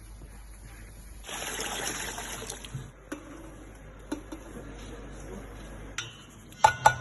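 Water splashing for about a second and a half, followed by a few faint clicks and then several loud sharp knocks near the end.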